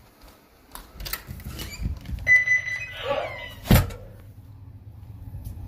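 A short steady high electronic beep, then a brief wavering sound and a single loud thump, followed by a low steady hum.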